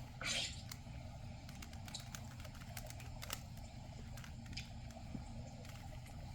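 Plastic Rubik's cube being twisted by hand, faint irregular clicks and rattles of its layers turning, with a short louder scrape just after the start.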